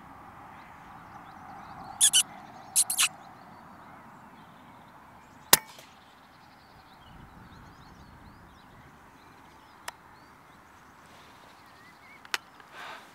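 Two short bursts of high squeaking, made by the hunter to get a feeding rabbit to lift its head, then a few seconds later the single sharp crack of a silenced air rifle firing: a clean headshot on the rabbit. A couple of faint clicks follow near the end.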